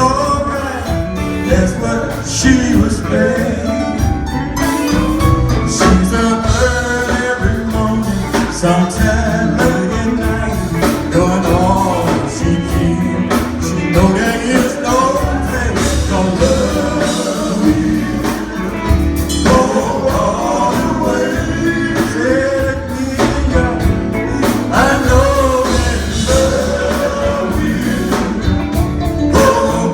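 Gospel group singing with instrumental accompaniment; the music runs on at a steady level.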